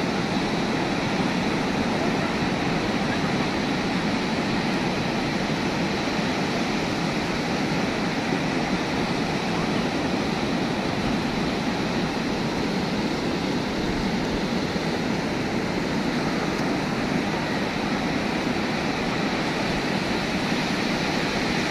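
Heavy surf breaking on a sandy beach in a rough sea: a steady, even rush of waves with no single break standing out.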